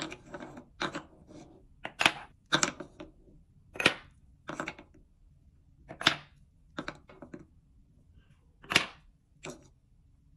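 Wooden balls, a wooden scoop, a wooden bowl and wooden cups knocking together as balls are scooped from the bowl and dropped into the cups. About a dozen sharp clacks, unevenly spaced about half a second to a second apart.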